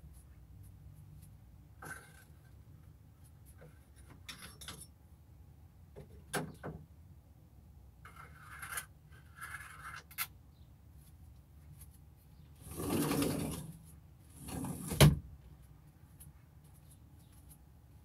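Scattered light clicks, rustles and knocks of objects being handled, with a longer rustle about thirteen seconds in and a sharp knock about two seconds later.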